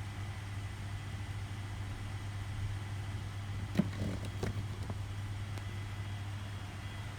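Steady low hum with a few light clicks about four seconds in.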